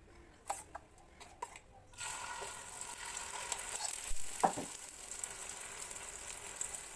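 A few light taps, then about two seconds in a steady sizzle starts as egg omelette batter is poured onto a hot tawa. A spoon scrapes briefly as the batter is spread.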